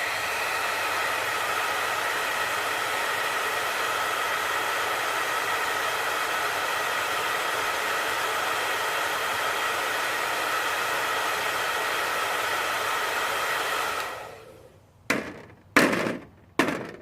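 Handheld blow dryer running steadily, a hiss with a faint steady whine, for about fourteen seconds, then dying away. A few short sharp knocks follow near the end.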